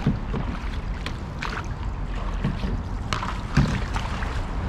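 Canoe paddles dipping and splashing in the water in strokes about every second and a half, over a steady low rumble of wind on the microphone.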